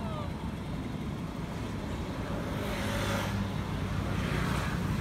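Low, steady rumble of a motor vehicle engine running, with a hiss that swells around the middle.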